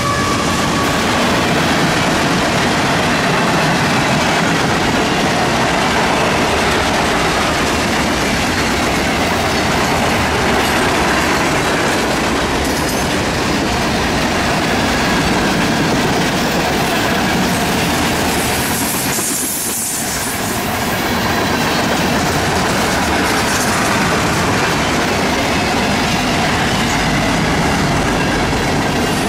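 A long manifest freight train's tank cars and hoppers rolling past, making a steady loud rumble and rattle of steel wheels on rail. The sound dips briefly about twenty seconds in.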